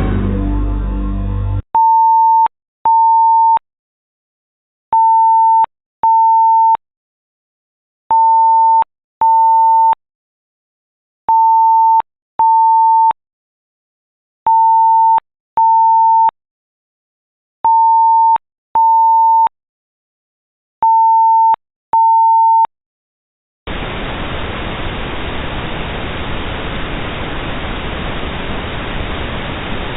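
Electronic alert beeps of a mock Emergency Alert System broadcast: a single steady mid-pitched tone sounding in pairs, seven pairs about three seconds apart, after a brief low buzzy noise at the start. About three-quarters of the way in the beeps give way to a steady hiss of static.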